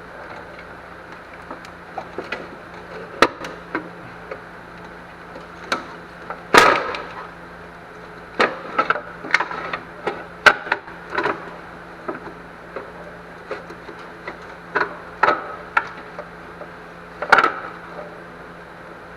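Irregular knocks and clanks of hand tools and metal parts being handled during an engine teardown, with a louder knock about six and a half seconds in and another near the end, over a steady low hum.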